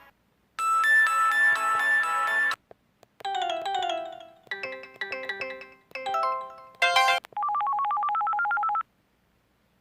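A mobile phone's built-in tones played one after another: a series of short electronic jingles with brief gaps between them, the last a buzzy, beeping melody.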